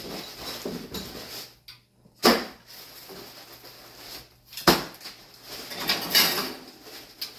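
Kitchen handling noises: two sharp knocks a little over two seconds apart as dishes are moved about on the counter, then a short stretch of handling clatter near the end.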